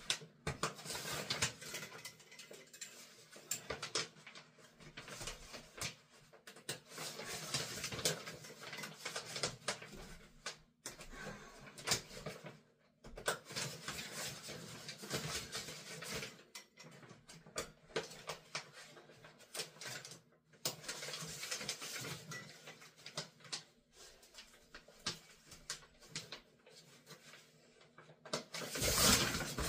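Shower curtain rustling and crinkling as its top edge is handled, with short clicks of the curtain rings being hooked through the holes onto the rod. The rustling comes and goes, with a louder stretch near the end.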